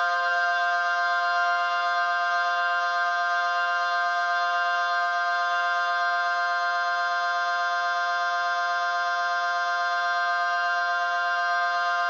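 Federal Signal Model 5T/7T dual-tone siren held at full speed, sounding a steady, unwavering two-tone chord with no rise or fall.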